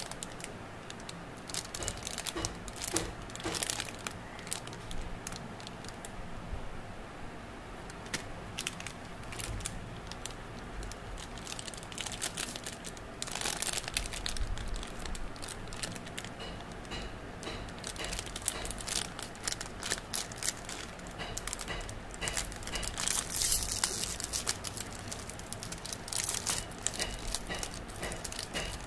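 Plastic candy wrappers crinkling and crackling irregularly as they are squeezed and turned over in the hands, louder about halfway through and again later. Near the end a wrapper is torn open.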